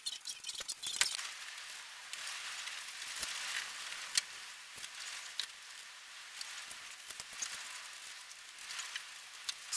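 Light clicks and knocks of wooden slats being handled and fitted on a pine canoe frame, over a steady high hiss.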